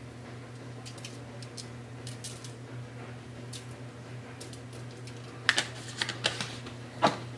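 Plastic spice shaker of Italian seasoning being shaken over raw meat: scattered faint ticks and rattles, then a few louder clicks and knocks near the end. A steady low hum runs underneath.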